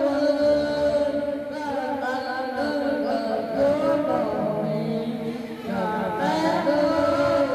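Men singing into handheld microphones, a melody of long held notes that bend in pitch.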